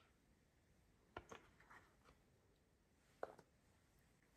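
A few faint, short taps and clicks over near silence, a pair about a second in and another pair a little after three seconds: a silicone spatula and a plastic yogurt pot knocking against a ceramic mixing bowl.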